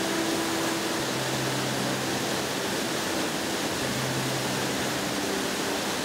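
Waterfall plunging onto rocks: a steady, even rush of falling water.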